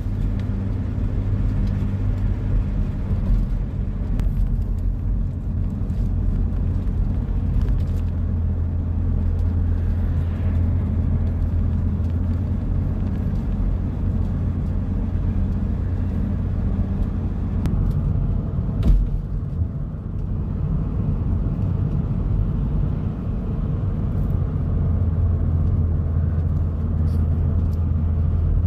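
Steady low rumble of a car driving, engine and road noise heard from inside the cabin, with one sharp knock about two-thirds of the way through.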